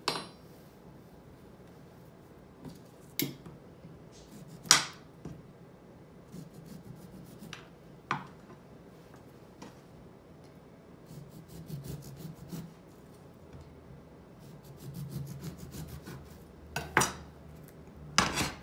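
Handling noises of cutting a lemon on a glass cutting board: a few sharp knife and glass knocks and clinks, with softer scraping in between. A loud glass clink comes near the end as the jar is handled.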